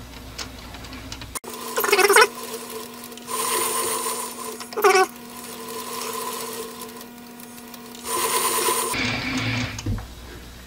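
Lathe running with a steady motor hum while a die held in a hand die stock cuts a short thread on the end of the turning leadscrew, with several short bursts of scraping cutting noise. The motor stops about nine seconds in.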